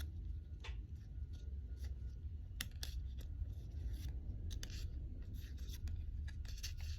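Pokémon trading cards being handled and flipped through one by one: irregular soft flicks and rustles of card sliding against card, over a low steady hum.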